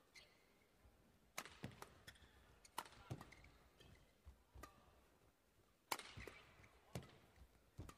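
Badminton rackets hitting a shuttlecock back and forth in a fast doubles rally: a string of sharp, faint hits at uneven intervals, about seven in all.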